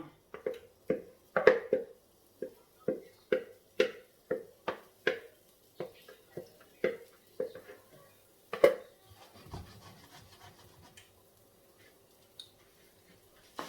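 A kitchen utensil knocks lightly and repeatedly against cookware, about twice a second for some nine seconds. It then gives way to faint rustling.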